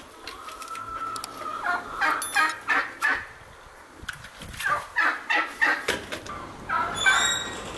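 Turkeys gobbling: three bursts of rapid rattling gobbles, about two, five and seven seconds in.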